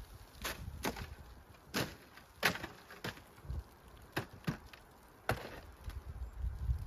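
Dry wood snapping and splintering: about nine sharp cracks, irregularly spaced.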